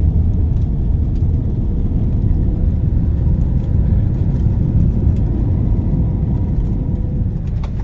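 Steady low rumble of an airliner in flight, heard from inside the cabin, with a faint steady hum above it.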